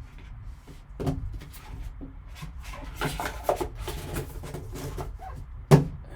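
A card box and its packaging being handled by hand: rustling with light taps and clicks, and one sharp knock a little before the end.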